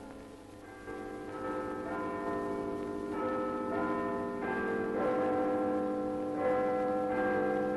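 Big Ben's clock-tower bells chiming: a slow run of struck bells about a second apart, each ringing on under the next, growing louder.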